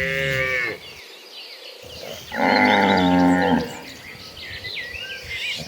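Cattle mooing: one moo ending just under a second in, then a second, longer and louder moo about two and a half seconds in.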